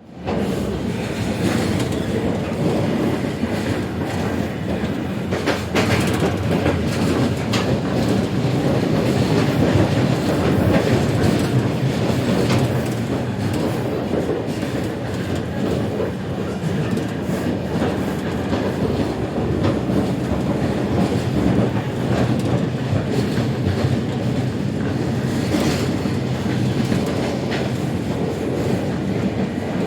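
Interior of a moving train carriage: a steady rumble of wheels on track, with scattered rail-joint clicks and knocks.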